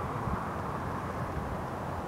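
Steady outdoor street ambience: an even, low rumble of traffic with no single vehicle standing out.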